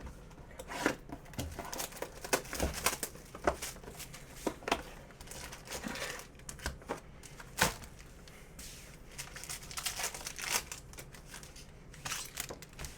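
Plastic trading-card pack wrappers being torn open and crinkled, with irregular sharp crackles, the loudest a little before the middle.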